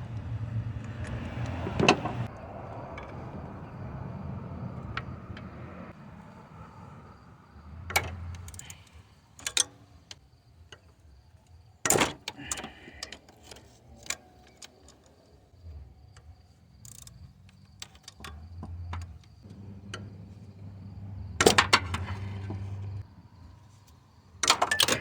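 Metal hand tools clanking and knocking against the engine while the water pump pulley bolts on a Toyota 2AZ-FE 2.4 L engine are loosened. A scatter of sharp knocks, the loudest about 2, 12, 21 and 24 seconds in, with low rumbling and handling noise between them.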